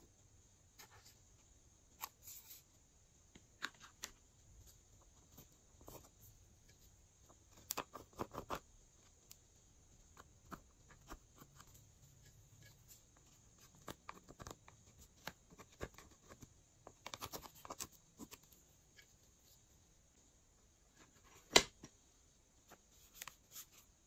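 Small plastic spatula scraping pressed eyeshadow out of palette pans and tapping it onto slime in glass dishes: faint scattered scrapes and clicks, with one sharp, louder click a couple of seconds before the end.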